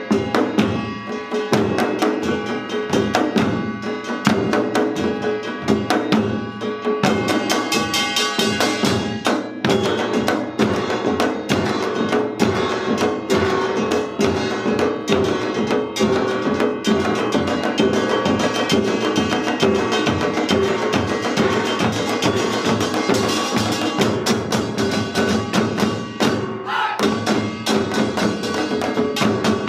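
Seated samulnori ensemble playing a Yeongnam rhythm: fast, dense strokes on janggu hourglass drums and buk barrel drums under the clanging of a small kkwaenggwari gong, with a larger gong ringing underneath.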